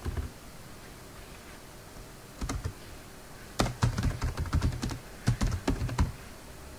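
Computer keyboard typing: a few key clicks near the start and again about two and a half seconds in, then a fast run of keystrokes lasting a couple of seconds.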